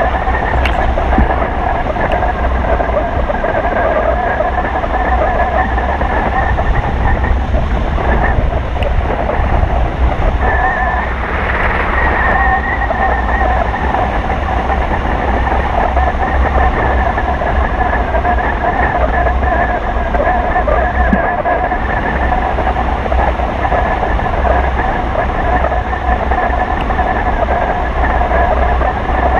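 Wind noise on a camera microphone mounted on a pole off a hang glider in flight: a loud steady rush with a heavy low rumble and a steady whistling tone above it from the airflow.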